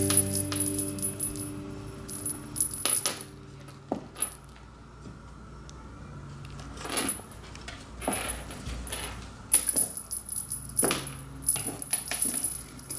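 Small bell on a feathered cat toy jingling in irregular bursts as a cat bats and bites at it.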